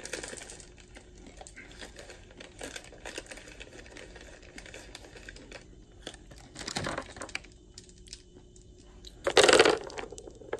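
Plastic candy wrapper crinkling and small clicks of hard candy-coated peanut M&Ms being sorted by hand. A louder rustle comes about two-thirds through, and the loudest rustling bump comes near the end.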